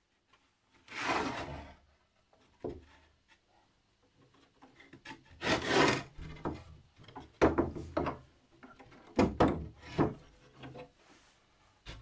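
Timber boards slid along and laid onto a wooden shelf frame: wood scraping against wood in a series of separate strokes, with a few knocks as boards settle. One scrape comes about a second in, then a busier run of scrapes and knocks from about halfway.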